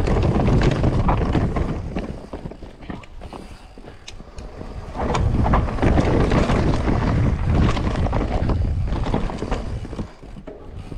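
Mountain bike descending a dirt forest trail at speed: wind rushing on the microphone, with tyre rumble and the knocks and rattles of the bike over the ground. It is loudest at first, eases off about two seconds in, and picks up again about five seconds in.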